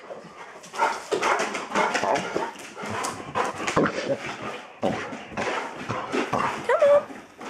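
Bernese mountain dog close up making a run of short excited vocal sounds and whimpers, with a high whine that rises and falls near the end.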